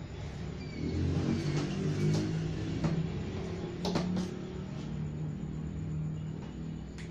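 A low, humming rumble with a few sharp clicks, the loudest about four seconds in.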